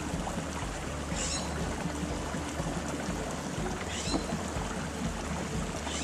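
Spring-fed brook running hard: a steady rush of flowing water, with a couple of brief high sounds about one and four seconds in.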